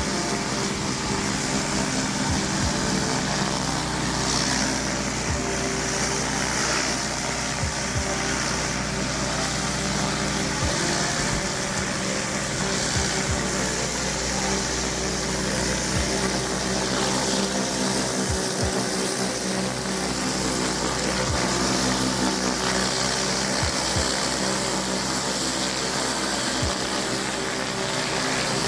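Pressure washer's Honda GX390 petrol engine running steadily under load, over a constant hiss of high-pressure water spray from paver cleaning.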